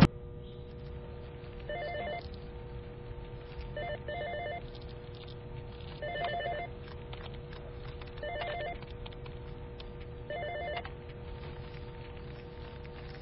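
A telephone ringing five times, about two seconds apart, each ring a short warbling trill, over a faint steady hum.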